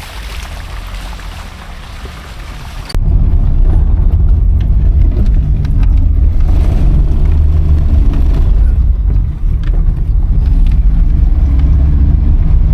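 Car driving: an even hiss cuts off abruptly about three seconds in and gives way to a loud, steady low rumble of engine and road.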